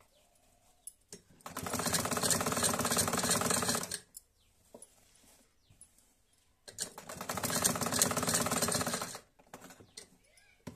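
Black 'Modern' domestic sewing machine stitching in two runs of about two and a half seconds each, a fast even patter of needle strokes, with quiet pauses and a few light clicks between the runs.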